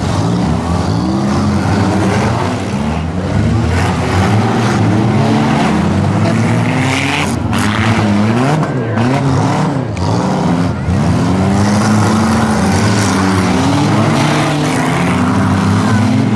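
Several compact cars' four- and six-cylinder engines revving hard at once, their pitches rising and falling over each other, as the cars drive, reverse and ram in a demolition derby.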